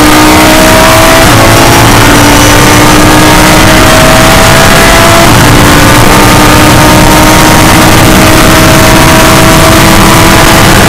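Audi R8 LMS race car's V10 engine heard loud from inside the cockpit at full throttle. Its pitch climbs steadily as the car accelerates, dropping back at upshifts about one and five seconds in.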